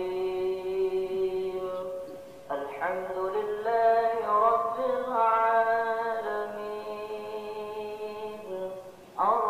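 A man's voice chanting Arabic prayer recitation in long drawn-out melodic phrases, pausing briefly for breath about two seconds in and again near the end.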